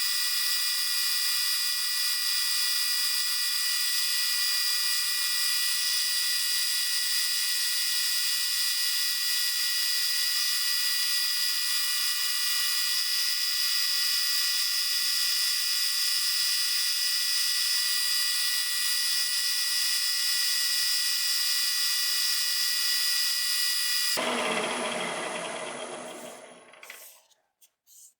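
Milling machine spindle running with a steady high whine, then switched off about 24 seconds in and spinning down, its pitch falling until it stops.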